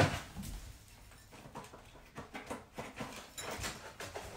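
Faint, scattered light taps and clicks of hands pressing and adjusting crown molding at a mitered corner.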